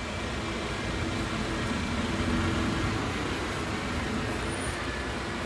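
Articulated city buses driving slowly past at close range, the engine's low hum swelling about two seconds in as the second bus comes alongside.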